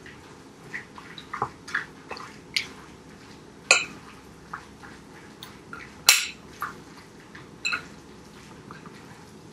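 A utensil stirring a thick filling of canned chicken, cream of chicken soup and mixed vegetables in a glass mixing bowl: irregular light clinks and taps against the glass, with two louder clinks at about four and six seconds in.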